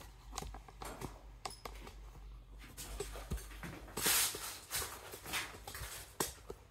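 Scattered light clicks and knocks at an irregular pace, with a short, louder rustling burst about four seconds in.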